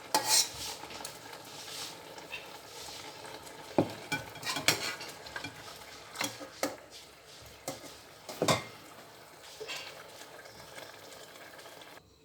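Metal utensil scraping and knocking against a cooking pot as cooked meat is lifted out of its stock, with irregular sharp clinks over a steady hiss.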